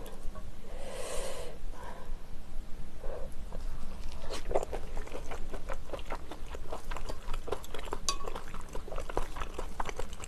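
Close-miked eating sounds from a mouthful of cooked clam: a short wet noise about a second in, then dense, rapid small clicks of wet chewing from about four seconds on.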